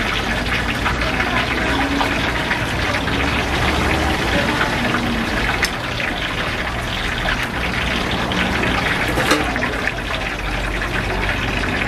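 Hot frying oil sizzling steadily in a large deep-frying wok, a continuous crackling hiss.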